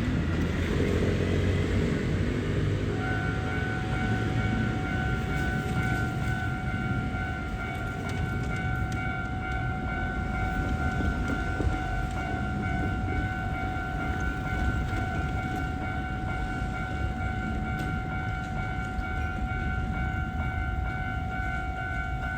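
A Hankyu train's rumble fades away, and about three seconds in a Japanese railway level-crossing warning alarm starts up: a steady, repeating electronic ding that keeps ringing over a low background rumble.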